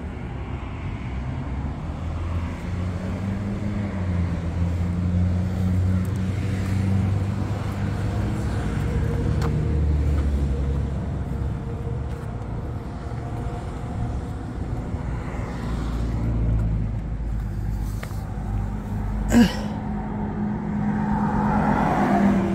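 Steady road and tyre noise of a car driving, a low drone that swells and eases, with one sharp click near the end.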